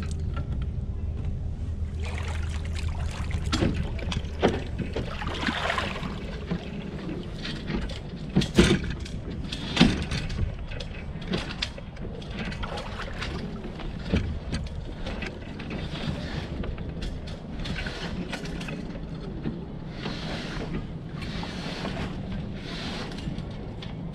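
Sail cloth rustling and rigging hardware clicking and knocking as a Hobie Cat 16's mainsail is lowered on its halyard, with irregular sharp knocks, the loudest two about nine and ten seconds in.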